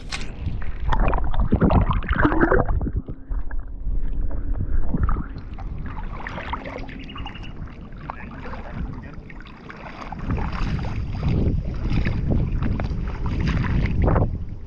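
Shallow water lapping and sloshing right at the microphone, which is held at the surface, with wind rumbling on the microphone. The sound comes in uneven surges, strongest near the start and again toward the end.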